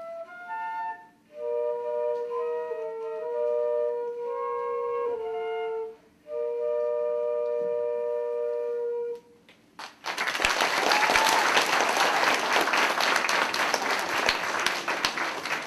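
Two flutes playing a duet in two-part harmony, closing on a long held chord about nine seconds in; then an audience applauding.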